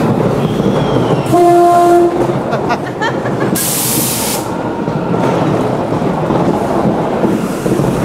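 Ghost train ride car running along its track with a steady rumble. About a second in, a steady horn-like tone sounds for about a second, with a few clicks after it. A loud hiss follows for about a second, roughly three and a half seconds in.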